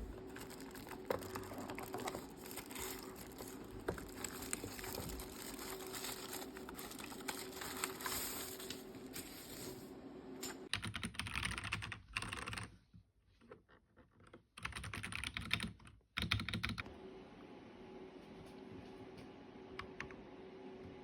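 Typing on a computer keyboard for a sound test: a steady run of key clicks, then about halfway through several fast flurries broken by short pauses, thinning to occasional clicks near the end.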